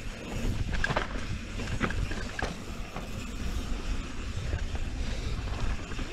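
Canyon Strive enduro mountain bike rolling fast down rough dirt singletrack, heard from the rider's camera: a steady low rumble of knobby tyres on dirt and wind on the microphone, with a few sharp rattles of the bike over bumps about one, two and two and a half seconds in.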